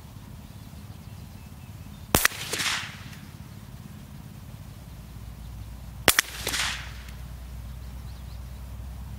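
Two shots from a Henry .22 rimfire lever-action rifle, about four seconds apart, each a sharp crack followed within half a second by a brief, quieter rasp.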